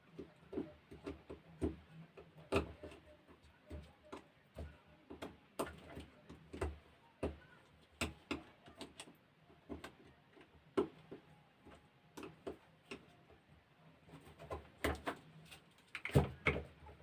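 Irregular clicks and knocks of small parts being handled and pried loose as a battery sprayer's pump is taken apart.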